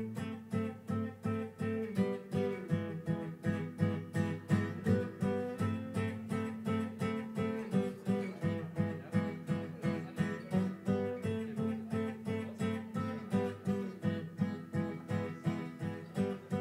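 Dreadnought acoustic guitar strummed in a steady rhythm, about three strums a second, repeating a chord pattern.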